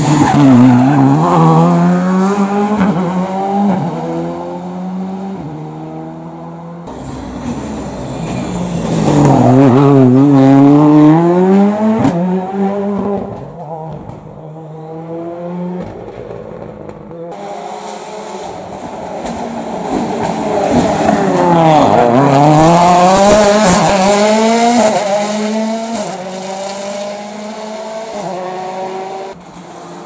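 Three Skoda Fabia R5 rally cars, each with a 1.6-litre turbocharged four-cylinder, pass one after another. Each one comes off the throttle into the bend and then accelerates hard through the gears, the engine note climbing and dropping back at every upshift.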